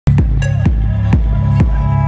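Electronic dance music with a steady four-on-the-floor kick drum, about two beats a second, over a heavy bass line and sustained synth tones. It starts abruptly at the very start.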